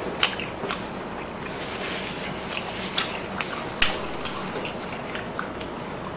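A person chewing pork belly close to the microphone, with irregular wet mouth clicks and smacks; the loudest click comes about four seconds in. The meat is tough and chewy from having gone cold.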